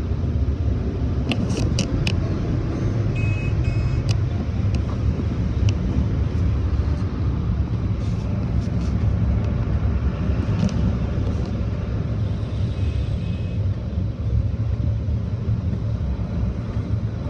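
Steady low rumble of automatic tunnel car-wash machinery, heard muffled from inside the car's cabin, with a few sharp clicks and knocks a second or two in.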